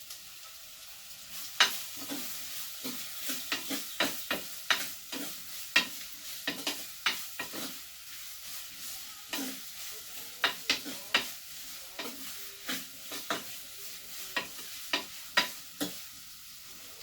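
Sliced onions frying in hot coconut oil in a clay pot: a steady sizzle, with irregular knocks and scrapes of a spoon stirring them against the pot. The onions are being sautéed until they soften.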